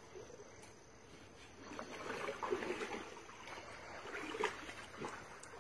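Pool water sloshing and splashing as a moose wades and shifts its legs in the shallow end of a swimming pool, in irregular bursts with a few sharper splashes between about two and five seconds in.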